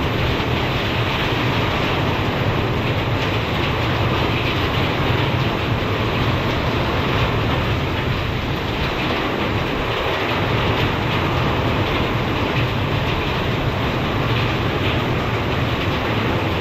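Heavy wind-driven rain and strong gusting wind of a severe thunderstorm, a loud, steady roar of rain and wind.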